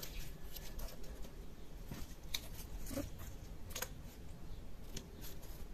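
Paper flowers being handled and set down on a wooden box lid: scattered light taps and rustles, a few sharper clicks among them.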